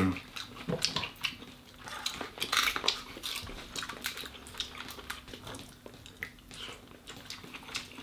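Scattered small clicks and crackles of cooked king crab legs being handled, their hard shells snipped open with kitchen scissors and the meat pulled out.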